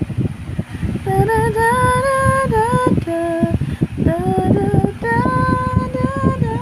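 A woman singing a slow song with long held notes that glide between pitches, starting about a second in, over a constant low rumbling background noise.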